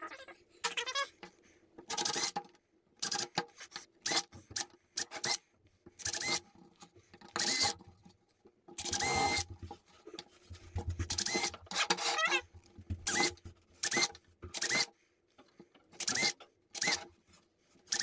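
Cordless 20-volt drill boring holes through a plastic milk crate, run in many short bursts in quick succession, with a brief motor whine at each pull of the trigger.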